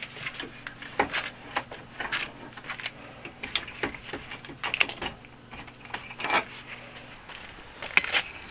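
Irregular metal clinks and knocks from a bench vise and a forged railroad spike being handled, with the vise handle turning. A low steady hum runs underneath and stops about seven seconds in.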